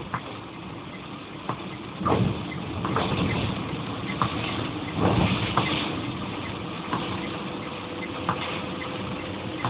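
Car driving in rain, heard from inside the cabin: a steady rush of road and rain noise, with a soft knock about every second and a half and two louder swells about two and five seconds in.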